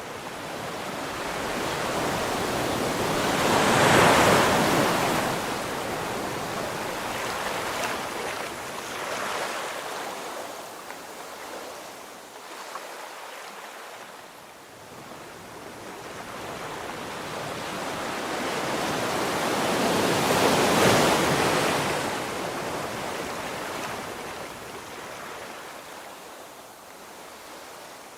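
Surf on a shore: two waves rise and break, one about 4 seconds in and one about 21 seconds in, with a lower wash of water between them.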